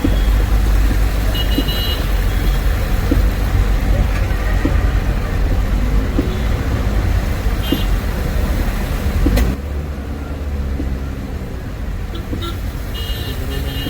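Road traffic: car and bus engines and tyres running with a heavy low rumble. The sound drops abruptly with a click about two-thirds of the way through, and a few brief high beeps sound over it.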